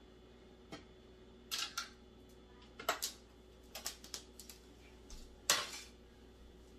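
Irregular clinks and knocks of kitchen dishes and utensils being handled. There are about a dozen sharp sounds, some in quick pairs, and the loudest comes near the end.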